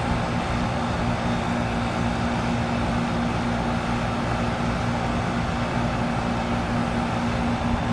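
2000 Philco heat pump outdoor unit running steadily during its defrost cycle: a steady hum over an even rushing noise.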